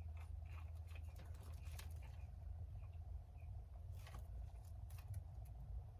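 Faint, scattered small clicks and rustles of hands handling craft materials (ribbon and an adhesive rhinestone strip), over a steady low hum.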